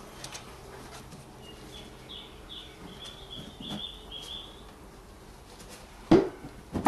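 A bird calls a quick run of about eight short chirps in the background, then two sharp knocks near the end, from a part being pushed into place on the car.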